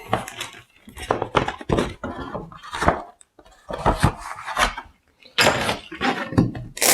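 LEGO packaging being handled: a run of rustles, clicks and light knocks as printed sheets and bags of bricks are moved and set down, with a stretch of plastic-bag crinkling near the end.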